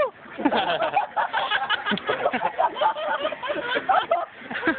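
Several people talking over one another and laughing in indistinct chatter.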